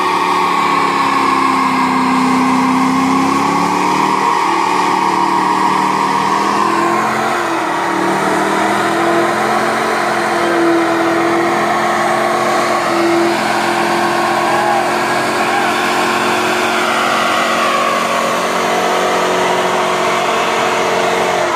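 Dodge Challenger engine held at high revs through a burnout, the rear tyre spinning and squealing on the pavement in one continuous sound. The pitch sags and climbs again a few times as the throttle is worked.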